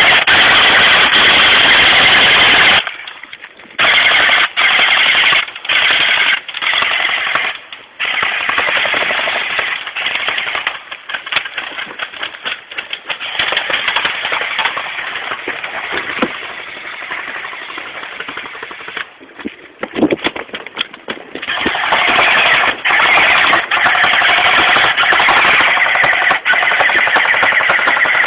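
Airsoft electric guns firing full-auto as a fast rattle of shots. A long burst comes at the start, shorter bursts follow, lighter firing runs through the middle, and heavy sustained firing returns over the last several seconds.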